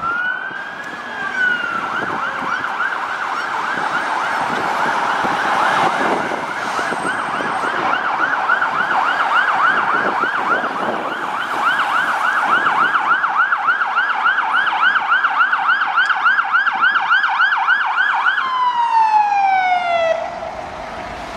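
Electronic siren of a MAN fire-and-rescue truck. It opens with one slow wail sweep, then runs as a fast yelp of about five sweeps a second for most of the time. Near the end the tone slides down in pitch and stops.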